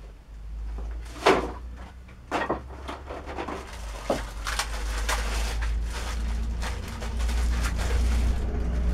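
Plastic packaging rustling, with knocks and clatter of parts being handled on a wooden workbench. The loudest is a sharp knock about a second in, over a steady low rumble.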